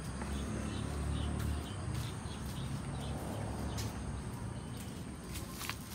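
Outdoor ambience: a low steady rumble with faint, short chirps scattered through it and a couple of light clicks near the end.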